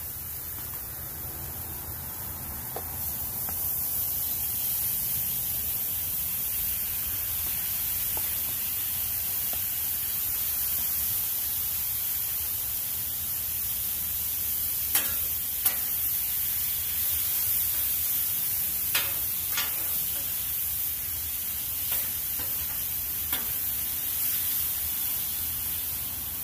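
Marinated sirloin steak sizzling on a hot flat-top griddle, the hiss growing louder a few seconds in as the meat goes on and then holding steady. A few sharp taps from the metal spatula come in the second half.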